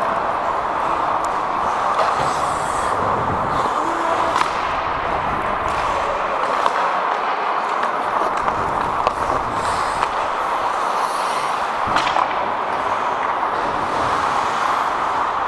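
Ice hockey play on the ice heard at close range: a steady rushing scrape of skate blades, broken by scattered sharp clacks of sticks and puck.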